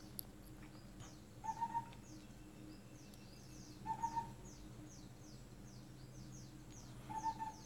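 Faint bird calls: three short, clear notes a few seconds apart, over a continual series of quick high chirps and a low steady hum.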